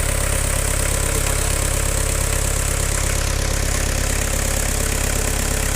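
Diesel engine running steadily at about 1500 rpm with an even pulsing beat, during a fuel-consumption test.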